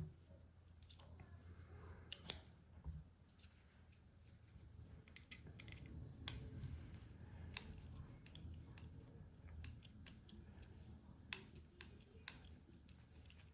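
Faint, scattered small clicks and light handling noise from a Torx driver and bits being worked on the knife's screws.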